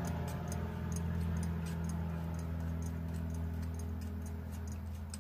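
Sailboat's inboard engine running steadily at idle, driving its belt-driven raw-water pump, with a steady light ticking over a low hum.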